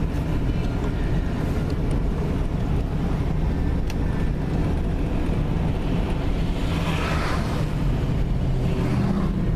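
Car driving: a steady low rumble of engine and tyre noise, with a hiss that swells and fades about seven seconds in.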